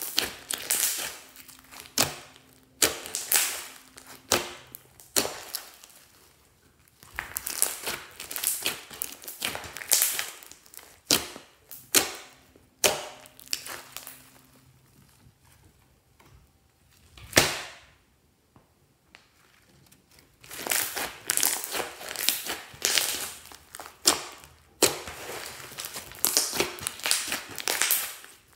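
Fluffy slime being squeezed, folded and stretched by hand: bursts of wet crackling and popping, with a quieter spell past the middle broken by one sharp snap.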